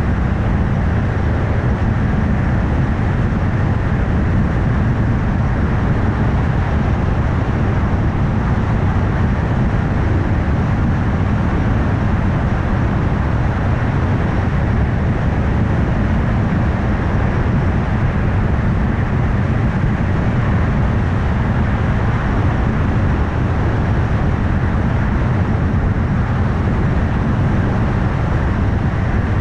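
A moving car's steady road noise: tyres on the road with a low engine hum, even throughout, with no gear changes or other events.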